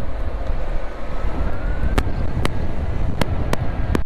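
Wind buffeting the microphone and road noise from an electric motorbike at speed, with a faint thin whine from its electric motor that glides slightly up in pitch. About five sharp clicks come at uneven intervals in the second half.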